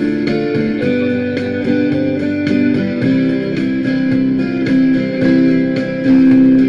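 Guitar playing the song's instrumental intro, chords struck in a steady rhythm about twice a second with the notes ringing on.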